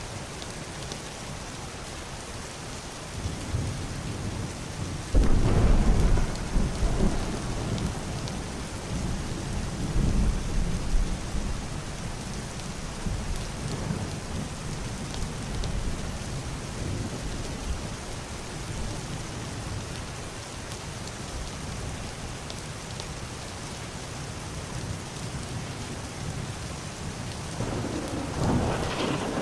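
Heavy rain falling steadily on a roof and window, with a clap of thunder about five seconds in that rolls on as low rumbling for several seconds. Another rumble of thunder builds near the end.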